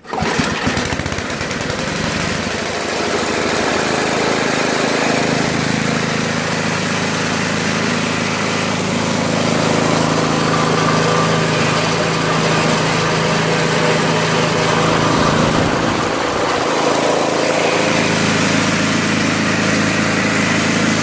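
The Toro 521 snowblower's 5 hp Tecumseh engine catches at once and runs steadily, with its note wavering briefly about three-quarters of the way through.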